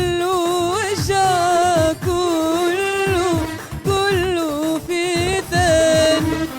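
A woman singing an Arabic song in ornamented, wavering phrases of about a second each over instrumental accompaniment.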